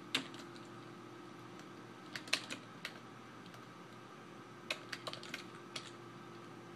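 Computer keyboard being typed on: a single key click, then short clusters of key clicks with pauses between. A faint steady hum runs underneath.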